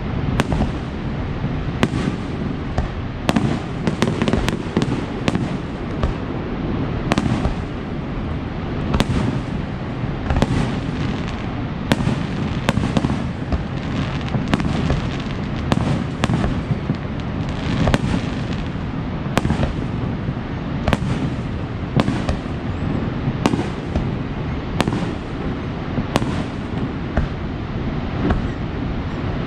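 Fireworks show: a rapid, irregular run of aerial shell bursts and crackling bangs, several a second at times, over a steady low rumble.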